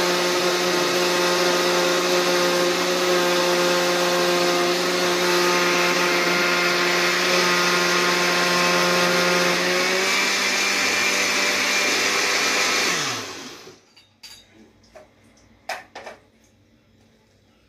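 Countertop blender running steadily, blending a frozen banana-chocolate coffee frappuccino mix; its pitch rises a little about ten seconds in. Near thirteen seconds it is switched off and winds down, followed by a few light clicks and knocks as the lid is taken off.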